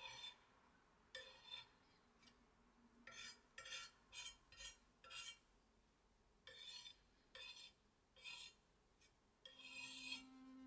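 Metal palette knife scraping and smearing a paste on a glazed ceramic tile in short strokes, about a dozen in a row with pauses between. A steady musical tone with overtones comes in near the end.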